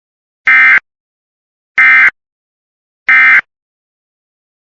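Three short, loud bursts of Emergency Alert System SAME digital data tones, evenly spaced about a second and a half apart. This is the end-of-message signal that closes an EAS alert.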